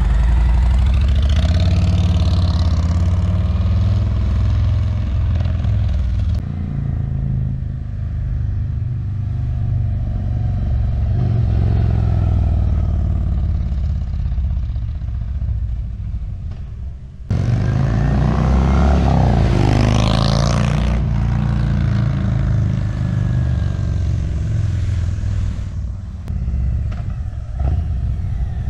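Harley-Davidson V-twin with Stage 1 tune and Rinehart true dual exhaust riding past, loud and deep, revving up as it accelerates. The engine note climbs near the start and again about two-thirds of the way through.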